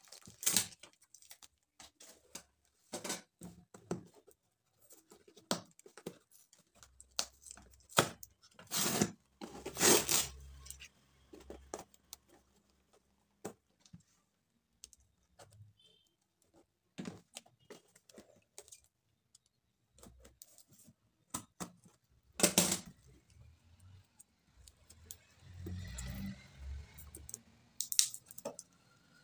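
A cardboard box sealed with packing tape being handled and opened by hand: scattered taps, knocks and scrapes of cardboard, with a few longer tearing noises from the tape.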